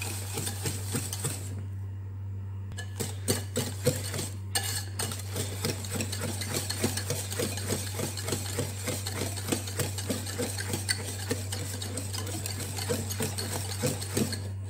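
Metal wire balloon whisk beating a thick banana, egg and brown-sugar batter in an enamel bowl, with quick repeated clicks and scrapes of the wires against the bowl. This is the stage where the brown sugar is being beaten until it dissolves without clumping. A steady low hum sits underneath.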